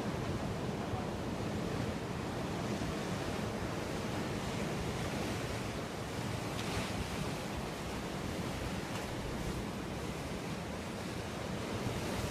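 Steady wash of ocean surf, with some wind on the microphone.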